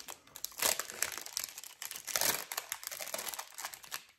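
A thin clear plastic bag crinkling as it is handled, in irregular crackles that are loudest about half a second in and again around two seconds.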